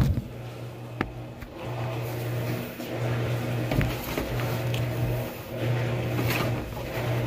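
Washing machine motor humming in on-off pulses just under a second long as it works through its wash cycle, not yet at the rinse. A couple of sharp knocks come from handling, one at the very start and one about a second in.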